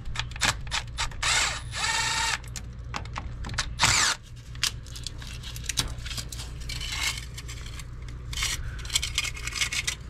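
Milwaukee M18 cordless drill with a nut-driver bit running in short bursts to loosen the clamp bands on no-hub couplings of a cast-iron drain pipe, with clicks and rattles of the pipe and fittings being handled.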